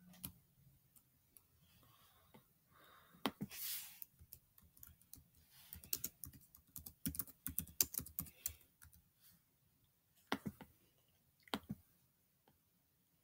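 Typing on a computer keyboard: scattered clicks, then a quick run of keystrokes about six to nine seconds in and two more clicks near the end. A brief rush of noise comes about three seconds in.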